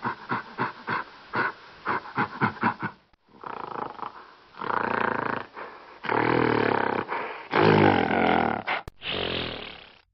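Gorilla growling: a fast run of short grunts for the first few seconds, then several long, deep, rough growls.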